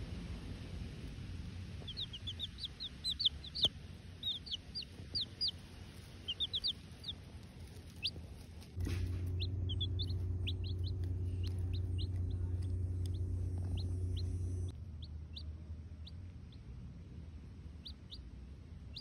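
Baby chicks peeping: quick runs of short, high cheeps for several seconds, then scattered single peeps. A steady low hum starts about nine seconds in and cuts off about six seconds later.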